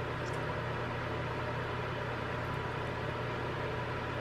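Steady low hum and hiss of background noise, with a faint click or two about a third of a second in.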